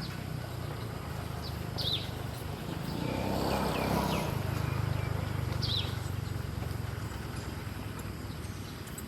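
A small bird gives a few short, high, falling chirps, about two seconds in and again near six seconds, over a steady low hum. A swell of noise rises and fades in the middle.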